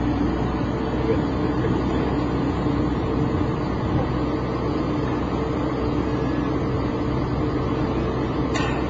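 Heavy pile-driving machinery running with a steady engine drone and a hum of several held tones. No regular hammer blows can be picked out. One short sharp sound comes near the end.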